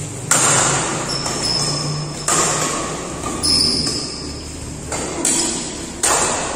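Badminton rally: the shuttlecock is struck by rackets about six times, roughly once a second, each sharp hit echoing in a large hall, with high squeaks of shoes on the court floor.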